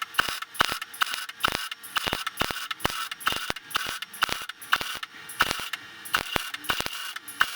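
Irregular sharp metallic clicks and taps, a few a second, over a faint steady hum: steel parts being knocked and handled at the workbench.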